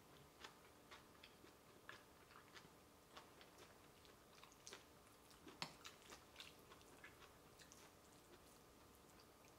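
Faint metal spoon clinking and scraping against a ceramic bowl as saucy tofu and rice are stirred together: scattered soft clicks, the sharpest a little past halfway, over a low steady room hum.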